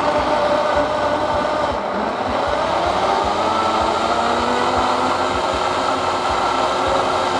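Blendtec blender with a Wildside jar running on a manually set speed, puréeing pea soup: a steady motor whir whose pitch rises a little a few seconds in.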